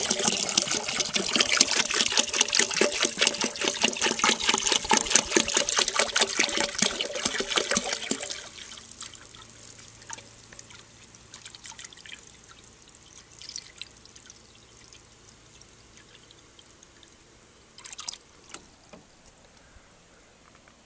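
Water poured from a gallon jug into a toilet tank that already holds water, loud and gurgling for about eight seconds, then dying to a faint trickle. A couple of light knocks near the end.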